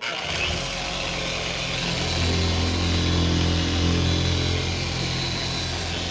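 Electric 6.5-inch polisher with a compound pad running steadily against a headlight lens, starting right away and growing louder about two seconds in.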